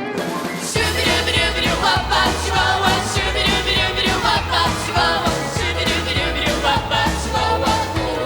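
Upbeat pop-dance music: voices singing over a backing track with steady drums, and a bass line that comes in about a second in.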